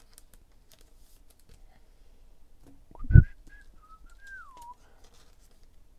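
A short thump about three seconds in, then a person whistling a brief wavering few notes for about a second and a half, ending on a falling note.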